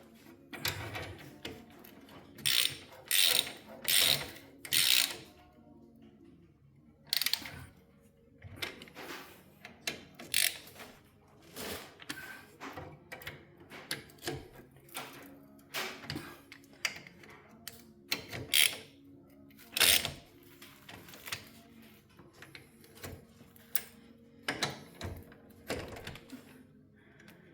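Hand ratchet wrench clicking in short runs as the bolts of a rear differential cover are run down and snugged.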